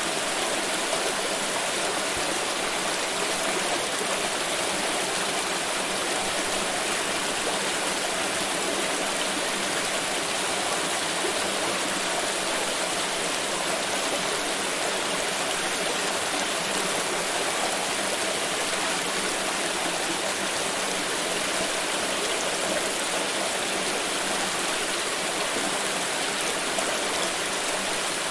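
Water pouring and rushing steadily in a continuous, even flow, with no breaks or changes.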